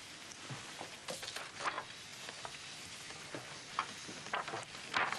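Soft, irregular rustling with light clicks and knocks: papers and small objects being handled. The strongest rustle comes near the end.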